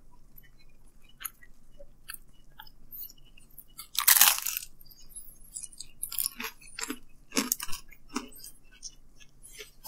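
A bite into a slice of pizza about four seconds in, the crust crunching loudly, followed by chewing with short, crisp crackles and clicks.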